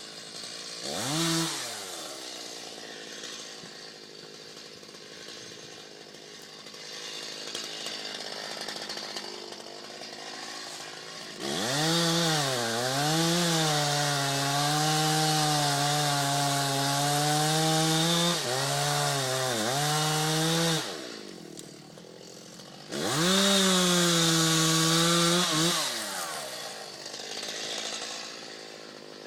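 Two-stroke chainsaw idling, revved briefly, then held at full throttle for about nine seconds as it cuts into a tree, its pitch dipping under load. It drops back to idle, and a second full-throttle burst of about three seconds comes near the end.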